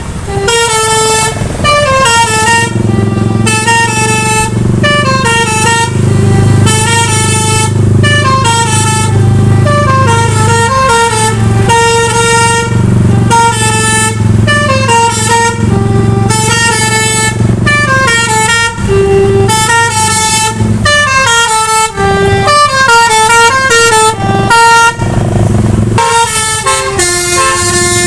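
Bus basuri horn, a multi-trumpet musical air horn, playing a melody: loud notes stepping up and down in quick repeating phrases, over a steady low drone.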